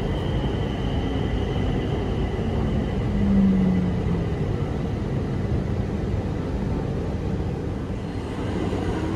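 Steady rumble inside an elevated metro train car as it pulls out of a station, with a low hum that swells briefly about three seconds in.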